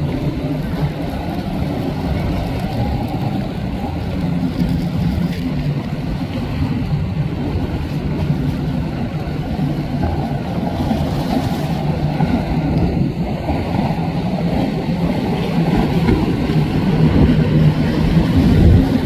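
Motorboat engines running at speed, a steady low drone over the rush and splash of the boats' wakes through choppy water, swelling a little louder near the end.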